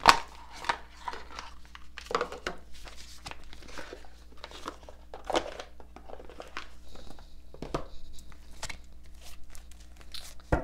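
A deck of cards shuffled by hand: irregular papery flicks, riffles and taps, with a sharp tap right at the start. A low steady electrical hum runs underneath.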